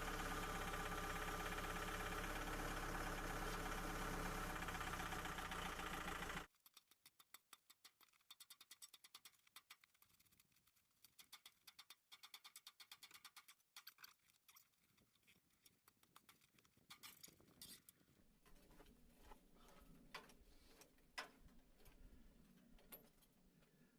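A small engine running steadily, which cuts off abruptly about six seconds in. Faint, rapid, irregular ticking and clicking follows.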